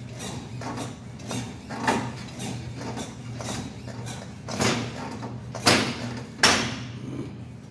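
Seated leg extension machine worked through repetitions: a run of light mechanical clicks and creaks about two a second, with several louder clanks in the second half.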